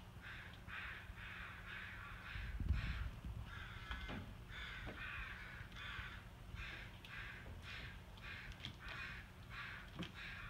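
An animal calling harshly over and over in a regular series, about three calls a second. A single thump, the loudest sound, comes about two and a half seconds in.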